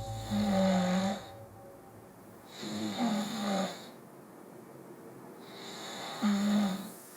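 A man snoring in his sleep: three loud snores, about three seconds apart.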